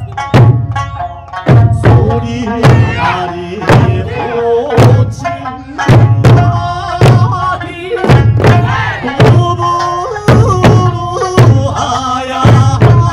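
Eisa performance: large Okinawan odaiko barrel drums struck in a steady rhythm, about once or twice a second, with smaller hand drums. They play over a sung Okinawan folk-song accompaniment.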